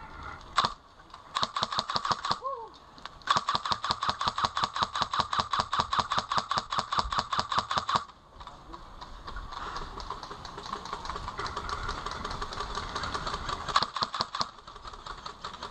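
Airsoft electric rifle firing on full auto: a short burst of rapid, evenly spaced clicks, then a long burst of about five seconds. After it, fainter rapid full-auto fire goes on for several seconds.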